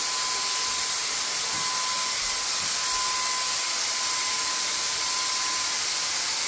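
Battery-powered handheld paint sprayer running steadily as it sprays paint onto a ceiling: a constant airy hiss with a thin, steady whine.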